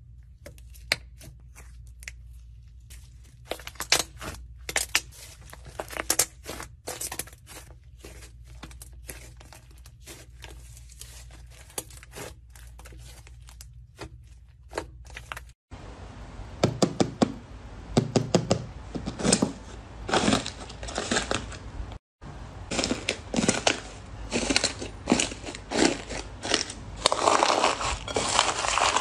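Slime squished, pressed and stretched by hand, making sticky clicking pops. Sparse single clicks at first, then much denser squishing and crackling after two cuts, loudest near the end.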